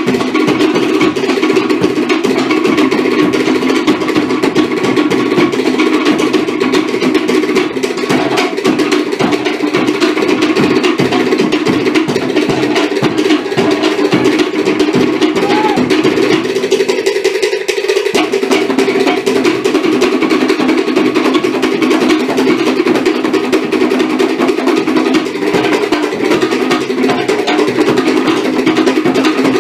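Cook Islands drum ensemble playing a fast, driving rhythm on wooden slit drums (pate) struck with sticks, with larger drums beneath. The lower drums drop out for a moment a little past the middle.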